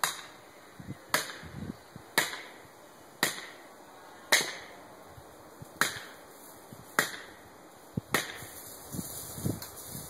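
Sharp blows of a hand striking tool on wood, about one a second, eight in all, then only a few softer knocks near the end.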